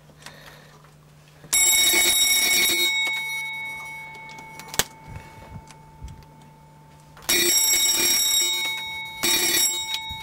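Boeing 737 cockpit fire warning bell rings in three short bursts: once about a second and a half in, then twice near the end. Each burst leaves a steady ringing tone that fades slowly, over a low steady hum. This is a pre-start test of the fire and overheat warning system.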